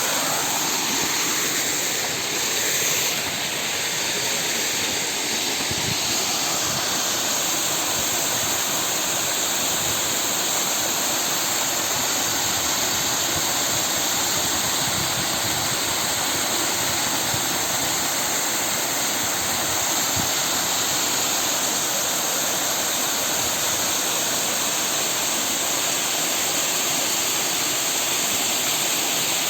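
Waterfall: falling water rushing with a steady, unbroken noise.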